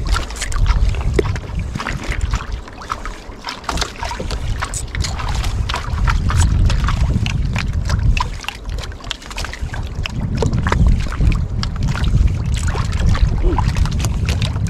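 Wind rumbling on the microphone and water slapping against the hull of a small fishing boat, with many short sharp splashes and ticks.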